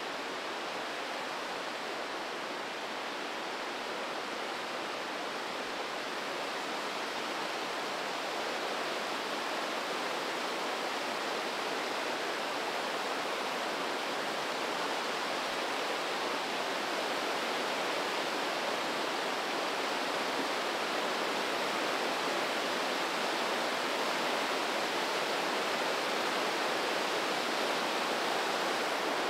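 The Breitach river rushing through a narrow rock gorge: a steady wash of whitewater that grows slowly louder.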